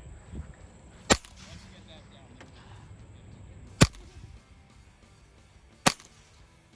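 Three single shots from a Ruger .22 rifle firing .22 Long Rifle rounds, each a short sharp crack, spaced about two to three seconds apart.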